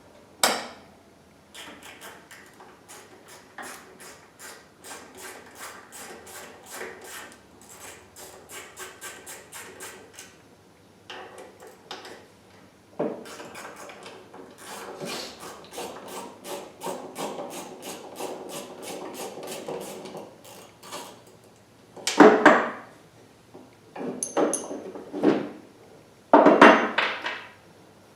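Hand work on metal and plastic parts: a long run of small, closely spaced clicks and scraping rubs, then three louder knocks and clatters near the end.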